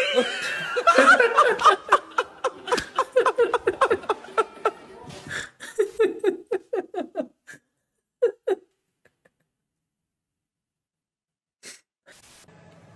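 A man laughing hard in quick repeated bursts that thin out after about seven seconds, with a last short laugh about eight seconds in, then near silence.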